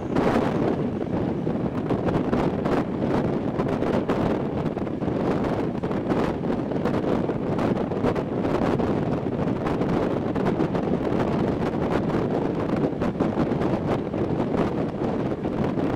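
Wind buffeting the microphone at an open window of the moving Thello EN221 night train, over the train's steady rolling noise on the track.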